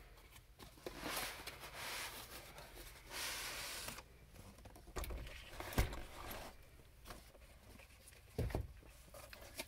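Cardboard toy-train boxes being handled: a box slides out of its outer carton with rustling and scraping. There is a sharp knock near the middle and a soft thump about eight and a half seconds in as the box is set down.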